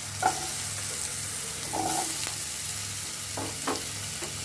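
Skin-on potato pieces frying in hot oil in a pan, sizzling steadily, with a spatula scraping and knocking against the pan a few times as they are stirred.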